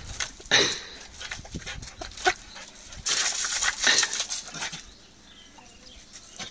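A dog snapping and biting at the water jet from a garden hose nozzle, with short snaps and the spray hissing loudest in a stretch about three seconds in; quieter near the end as the spraying stops.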